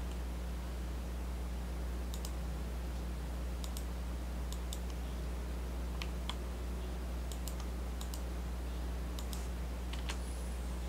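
Scattered, irregular clicks of a computer mouse and keyboard while operating CAD drafting software, over a steady low electrical hum.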